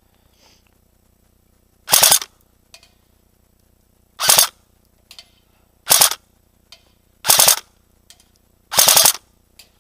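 Airsoft gun firing five short bursts of rapid shots, about one and a half seconds apart.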